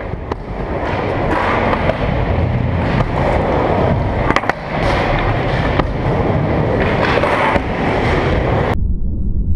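Skateboard wheels rolling on a ramp with a low rumble, with a few sharp clacks of the board; the higher rolling noise cuts off abruptly near the end, leaving the low rumble.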